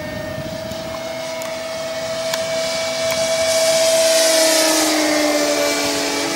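Electric motors and propellers of E-flite Cessna 150 foam radio-controlled planes in flight: a steady whine that grows louder from about three seconds in as one plane comes close.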